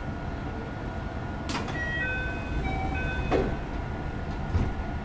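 Inside a JR West 221 series commuter train car: a steady low hum from the air conditioning, with a short electronic chime of several stepped notes framed by two clicks, starting about a second and a half in. A thump comes near the end.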